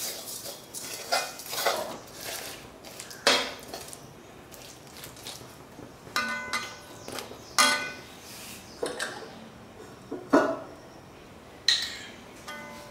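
Steel spoon scraping and knocking against an aluminium wok while stirring sugar as it melts for caramel: irregular clinks every second or two, a few of them sharper and briefly ringing.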